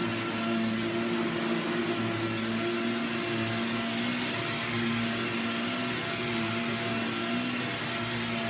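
Rocket vacuum cleaner running steadily: a motor hum with a few steady tones under an even rush of air.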